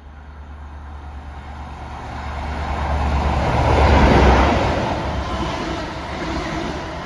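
Class 43 High Speed Train (power cars 43022 and 43189) passing through a station, a low diesel drone and rail noise that build to a peak about four seconds in and then ease off a little.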